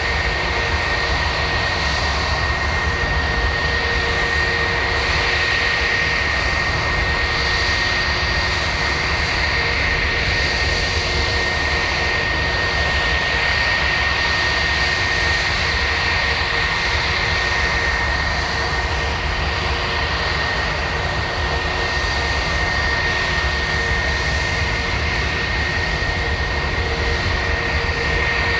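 Airbus A320-232's IAE V2500 jet engines idling steadily while the aircraft holds short of the runway, a constant high whine over a low rumble.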